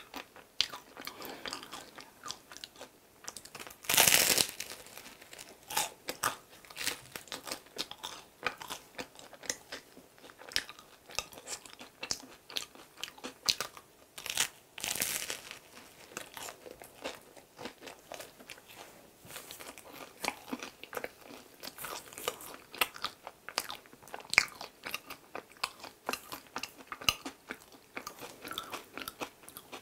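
Close-miked eating sounds: someone bites into a cream-filled bread and chews, with many small wet mouth clicks throughout. Two louder bites come about four seconds in and about halfway through.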